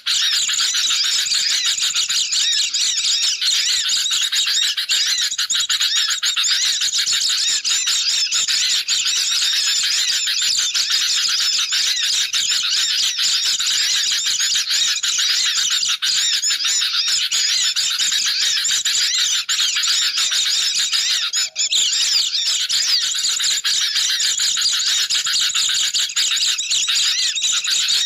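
Dense, unbroken chorus of agitated chattering and twittering from sooty-headed bulbuls and white-eyes, a bird-lure (pikat) recording, with many high calls overlapping and one very brief break about 21 seconds in.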